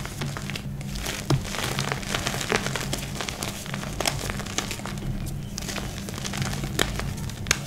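Hands crumbling and crushing dry chunks of reformed gym chalk in loose powder: soft dusty crunching with many small, sharp crackles, a few louder snaps scattered through. Quiet background music with a low steady pulse runs underneath.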